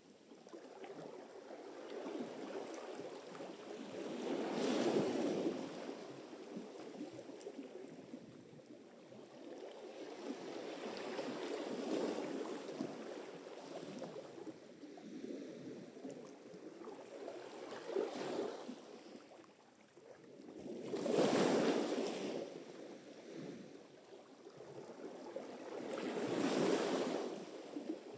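Sea surf: waves breaking and washing up the shore, the rush of water swelling and ebbing about five times, with the sharpest wave about two-thirds of the way through.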